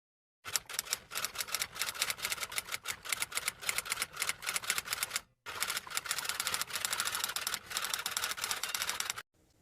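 Rapid, continuous clatter of keys being typed, many clicks a second, with a brief pause about five seconds in.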